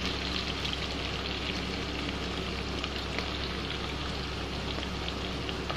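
Diced longganisa sausage and chicken meatloaf sizzling steadily in hot oil in a frying pan, with small crackles and pops throughout.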